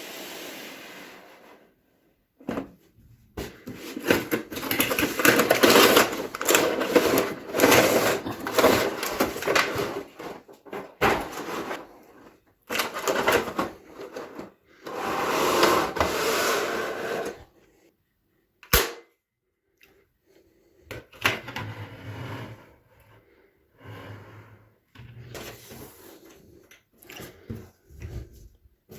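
Toy gun packaging being unboxed: cardboard and plastic rustling and crinkling in long spells, with handling knocks and one sharp click about two-thirds of the way through.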